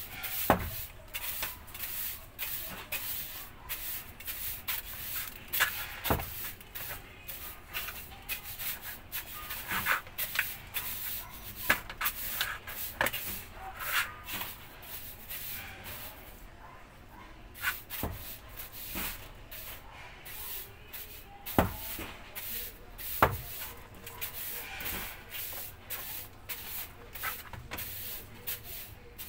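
Stiff-bristled plastic broom sweeping a hard floor in a run of short, irregular brushing strokes, with a few sharper knocks among them.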